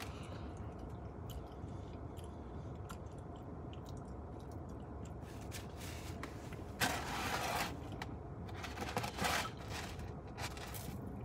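Food packaging scraped and rustled as it is handled. There is a loud rustle lasting under a second about seven seconds in and a shorter one about two seconds later, over light chewing and small clicks.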